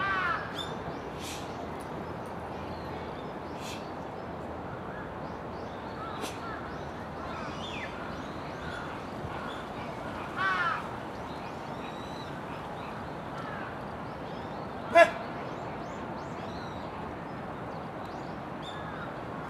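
Birds calling over steady outdoor background noise: short calls near the start and about ten seconds in, and a louder, sharp call about fifteen seconds in, with faint chirps in between.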